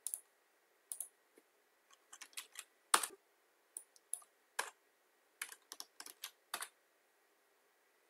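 Computer keyboard keys clicking at uneven intervals, about fifteen sharp clicks with the loudest about three seconds in, stopping a little before the end.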